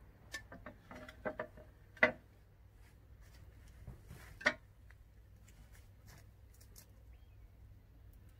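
Scissors snipping through marigold stems, with stems and vases handled on a glass table: a quick run of small sharp clicks, one loud snip about two seconds in and another about four and a half seconds in, then a few faint ticks.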